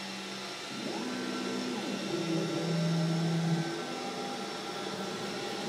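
xTool S1 enclosed diode laser starting a job, quiet overall. Its fans keep up a steady hum. From about a second in to near four seconds, the laser head's stepper motors whine in notes that rise, hold and fall as the head moves.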